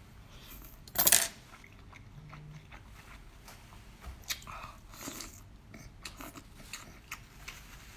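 A person eating seafood close to the microphone: one loud crunchy bite about a second in, then chewing with scattered smaller crunches and clicks.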